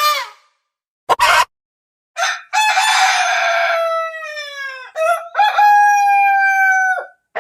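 Rooster crowing: one long cock-a-doodle-doo with falling phrases and a long held final note that cuts off sharply. A short, sharp burst of sound comes about a second in, before the crow.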